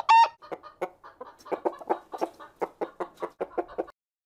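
A chicken clucking: a loud, high squawk right at the start, then a rapid run of short clucks, about five a second, that stops shortly before the end.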